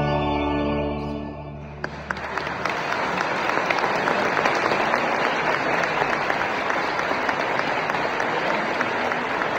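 A held chord of church music fades out in the first two seconds. A congregation then breaks into steady applause, many hands clapping.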